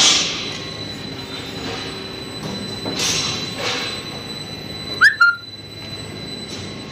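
Cold roll forming machine running: steady mechanical noise of the roller stands and drive, with a faint steady high whine. About five seconds in come two sharp clacks with a brief squeak.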